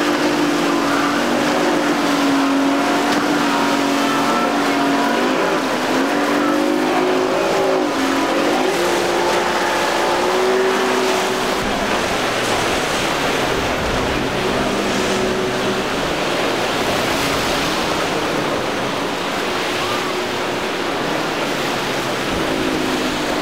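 Mercury 150 outboard motor running at speed, a steady drone whose pitch dips and rises several times in the first half as the throttle and load change, then settles lower about halfway through. A constant hiss of wake and waves lies under it.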